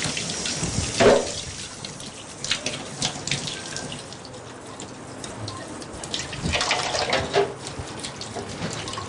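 Water running steadily from a kitchen tap into a sink, with scattered light clinks and knocks.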